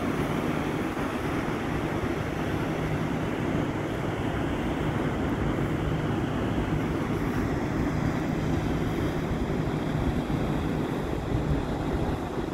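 Steady low drone of a Rhine cargo ship's diesel engine going past, mixed with wind noise on the microphone and the wash of river water.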